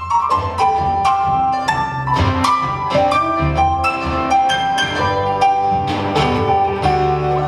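Live acoustic band playing an instrumental passage, a run of quick picked or struck melody notes over a bass line and light percussion.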